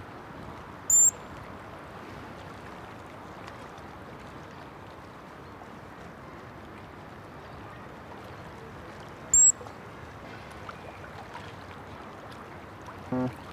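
Steady rushing water noise from the pool, broken twice by a short, sharp high-pitched chirp, about eight seconds apart.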